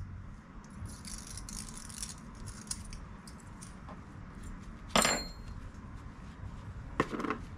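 Light metallic clicks and clinks of snap-ring pliers working a snap ring off the end of a hydraulic clutch slave cylinder. About five seconds in there is one sharp metal clink that rings briefly, then another click about two seconds later.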